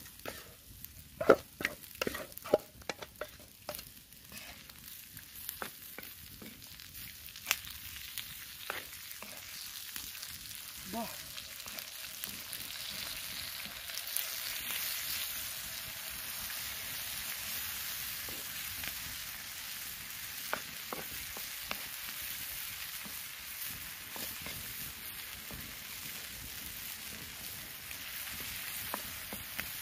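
Baby octopus sizzling on a hot flat stone over a wood fire, with sharp clicks and knocks in the first several seconds. The sizzle grows louder about a third of the way in as the chilli sauce goes onto the stone, and a wooden spoon stirs it.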